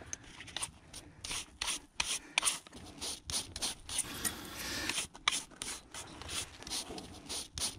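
Stiff-bristled hand brush scrubbing sand and dirt off the rusted steel of a freshly excavated MP40 submachine gun, in quick, irregular strokes about two or three a second.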